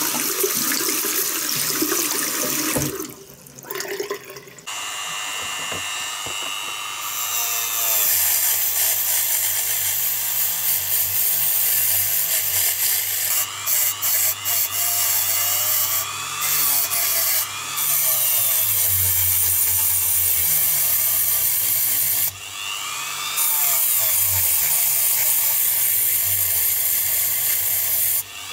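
A tap runs into a sink for the first few seconds. Then a hand-held rotary tool with a small abrasive wheel grinds a corroded zinc diecast toy car body. The motor's whine bends up and down in pitch as the wheel presses on the metal, with several brief breaks where the tool is eased off.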